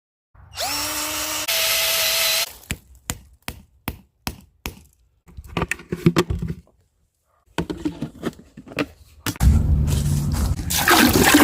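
A power drill runs in two short bursts, its pitch rising as it spins up, then a string of sharp wooden knocks and cracks, as when a maple is drilled and a spile tapped in for sugaring. Near the end a louder, steady noisy sound with a low hum sets in.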